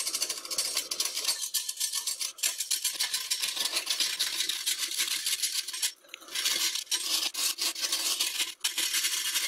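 Lathe chisel cutting a spinning green oak blank: a fast, even ticking chatter as the edge catches the wood on every turn, the blank having slipped on its drive centre. The cut breaks off briefly about six seconds in.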